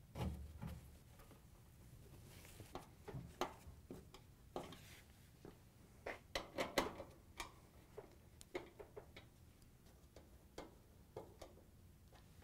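Faint, irregular clicks and light taps of a screwdriver and screws against a clothes dryer's sheet-metal front panel as it is fastened, with a low thump right at the start.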